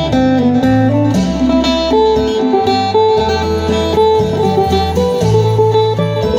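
Acoustic phin, the Isan three-string lute, playing a quick melody of plucked notes over a steady ringing drone note, with low bass notes changing beneath.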